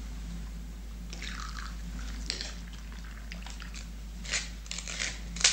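A brief pour from a jug about a second in, then a table knife scraping butter across a dry, crisp rusk (biscotte): a run of short crunchy scratches and cracks, the sharpest near the end as the rusk cracks under the knife.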